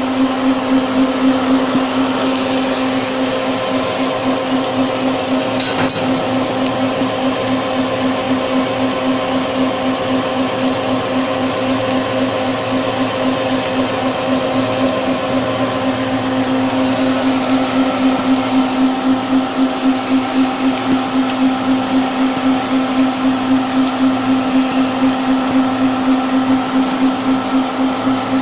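Electric pet food extrusion machine running: a steady machine hum with a strong low tone that pulses in an even beat. There is one brief click about six seconds in.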